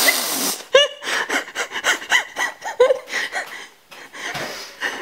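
A woman laughing hard: breathy, rasping gasps in irregular bursts with a couple of short voiced yelps, dying down briefly about four seconds in.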